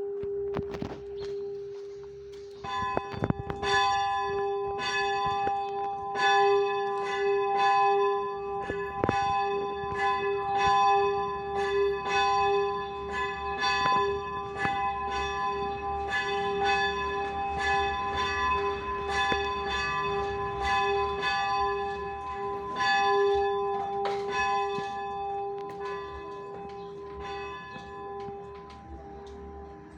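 A bell rung with quick repeated strokes, about two a second, starting about three seconds in. Its deep hum carries on steadily between strokes, and the striking dies away over the last few seconds.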